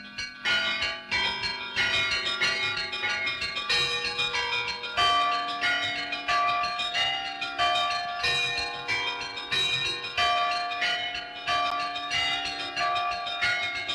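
Several church bells of different pitches rung in a quick, irregular pattern, each stroke ringing on under the next. The ringing gets louder about half a second in.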